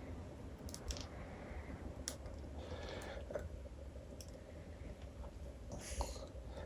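Faint, scattered plastic clicks and a brief rustle from a Hasbro Lightning Collection Rita Repulsa action figure being handled as its joints are moved, with about half a dozen irregular clicks.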